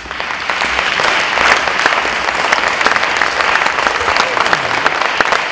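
Audience applauding, swelling in over the first half second and then holding steady.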